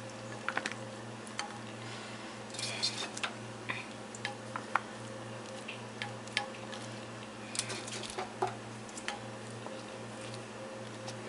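Tongs lifting noodles, vegetables and shrimp from a wok into a plastic food container: scattered soft clicks and taps with squishy plops of food, over a steady low hum.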